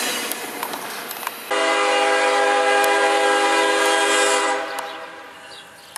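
Rushing noise of a passing freight train's last cars, then, about a second and a half in, a CSX diesel locomotive's multi-chime air horn sounding one held chord for about three seconds before fading, blown for a road crossing.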